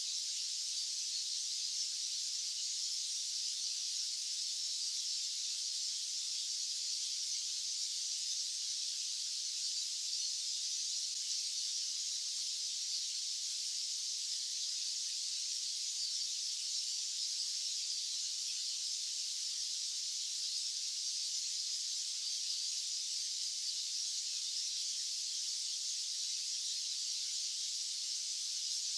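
Continuous white noise: a steady, even high hiss with no low end and no change in level.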